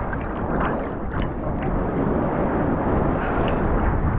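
Sea water sloshing and splashing around a waterproof GoPro held at the surface, with wind buffeting the microphone and a few short splashes.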